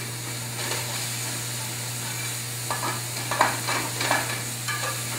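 Blueberries sizzling in a hot metal sauté pan with a steady frying hiss. A metal spatula scrapes across the pan several times about three to four seconds in.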